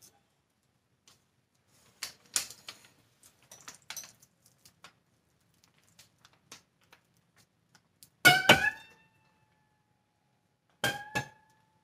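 Green metal soap log cutter being worked: light clicks and knocks as the soap log is handled and set in the frame, then two loud metallic clanks with a brief ringing, about 8 s in and again about 11 s in.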